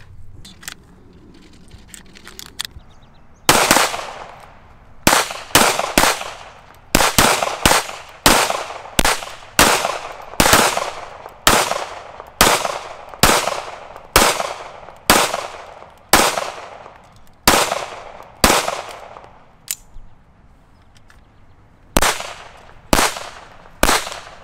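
Semi-automatic pistol shots, about thirty in all, fired one after another roughly every half second to a second, with a short pause near the end before three more.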